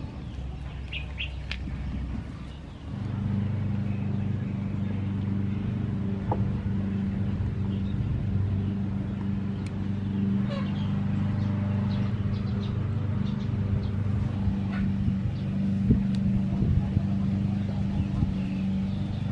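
A motor runs with a steady low hum that sets in about three seconds in, with faint bird chirps over it now and then.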